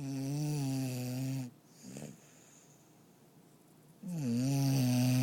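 A sleeping dog snoring: two long snores, each about a second and a half and holding a steady pitch, one at the start and one about four seconds in, with a brief fainter sound between them.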